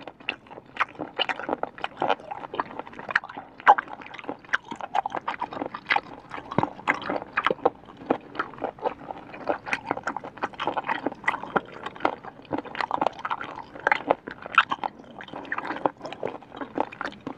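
Close-miked chewing of chewy, crunchy smoked snail meat: wet squishing with a steady run of small sharp crunches and clicks.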